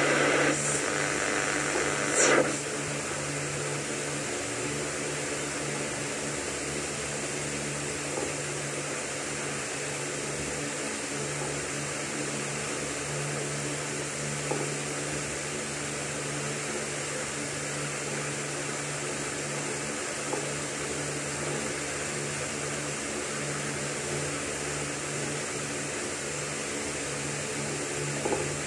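AM radio tuned to 1134 kHz before the station signs on: steady static hiss with a low hum, with a short crackle about two seconds in and a few faint ticks.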